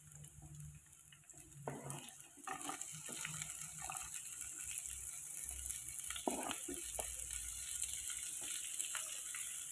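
Sliced shallots, garlic and green chilies frying in a little oil in a nonstick wok: a steady sizzle that comes up about two and a half seconds in as the chilies slide off a plastic cutting board into the pan. A few light knocks and scrapes come over it.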